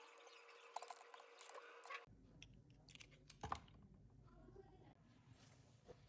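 Faint small clicks and taps of a mobile phone's plastic parts and small tools being handled. About two seconds in the sound cuts to a lower rumble, and a sharper click follows about a second later.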